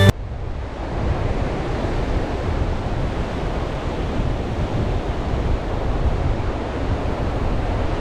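Surf breaking steadily on a sandy beach, with wind rumbling on the microphone.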